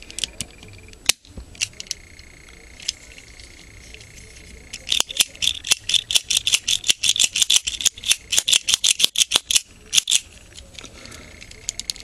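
Plastic clicking from a Transformers Air Raid toy figure being handled. A few scattered clicks come first. From about five seconds in, a rapid run of sharp clicks, about seven a second, lasts several seconds as a part is turned or spun.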